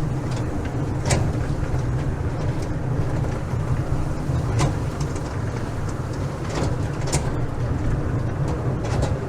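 Small theme-park ride train running: a steady low rumble with a few sharp clicks along the way.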